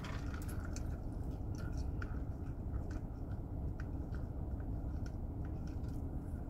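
Someone chewing French fries, with small irregular wet mouth clicks, over a steady low hum inside a car cabin.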